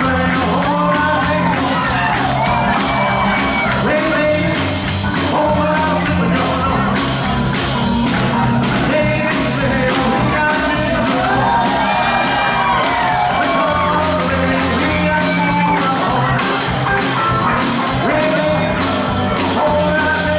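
Live band playing an up-tempo song with a singer, over a steady beat of drums and bass.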